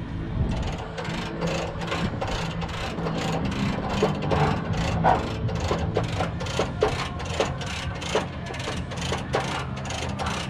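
Hand ratchet wrench clicking in quick, even strokes, about three a second, as a bolt is turned, over a steady low hum.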